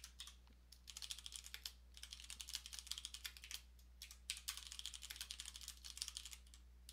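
Typing on a computer keyboard: quick runs of keystrokes with a short pause about halfway through, over a faint steady low hum.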